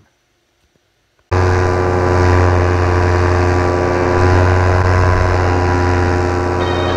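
After about a second of near silence, a paramotor's engine and propeller cut in abruptly, running steadily in flight: a loud, even drone with a strong low hum.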